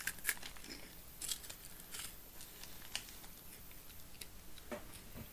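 Faint, scattered crackles and clicks from a plastic snack packet being handled and puffed cheese corn snacks being crunched.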